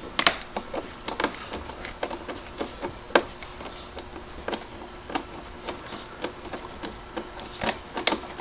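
T25 Torx bolts on a BMW X5 E70's plastic engine air filter housing cover being undone with a socket tool: a run of irregular sharp clicks and ticks, with a louder click near the start and another about three seconds in.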